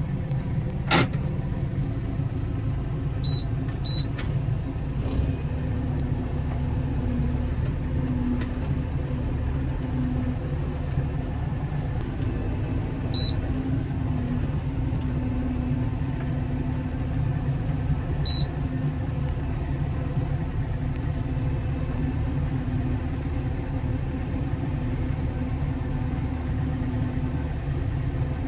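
Vehicle engine running steadily: a constant low rumble with a wavering hum. There is one sharp click about a second in and a few faint, brief high blips.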